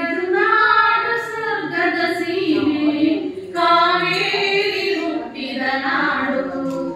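Two women singing a Kannada song together in long held notes. The phrase breaks briefly about three and a half seconds in, then the singing resumes.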